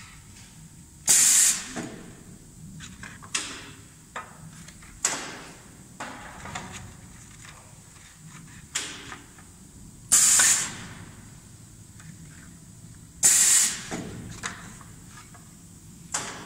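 Paper hamburger box forming press cycling: three short, loud hisses of compressed air venting as its pneumatic ram strokes, about a second in, about ten seconds in and about thirteen seconds in. Lighter clacks and knocks from the mold and the paper blanks come in between.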